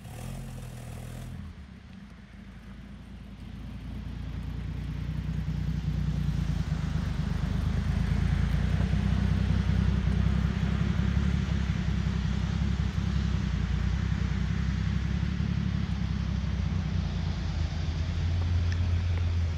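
A 1966 Ford F350's engine running under load as the truck drives circles through snow, a steady low engine note with a hiss over it. It grows louder over the first several seconds, holds steady, then cuts off suddenly at the end.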